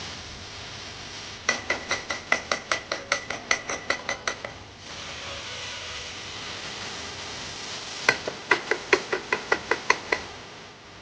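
Quick, even knocks of a kitchen utensil striking in two runs of about three seconds each, roughly four to five strikes a second, each with a slight ring, over a steady hiss.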